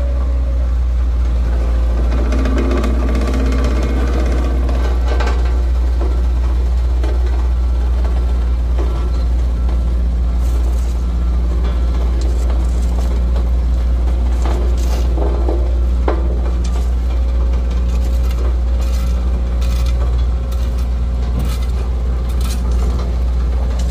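Truck engine running steadily with a deep rumble, and scattered clicks and knocks in the second half.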